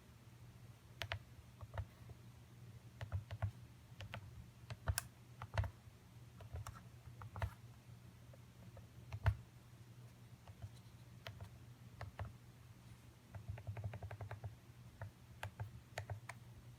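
Keys of the DYMO LabelManager 160's QWERTY keypad being pressed: irregular key clicks with quicker runs of typing near the end.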